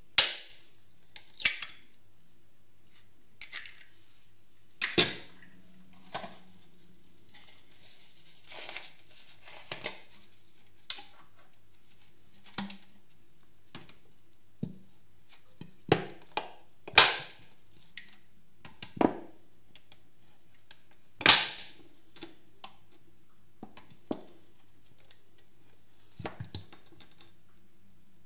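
Eggshells cracking over a glass bowl and an empty plastic water bottle squeezed and released to suck up egg yolks: a string of sharp clicks, cracks and plastic crackles, about twenty spread out, the loudest right at the start and twice in the second half.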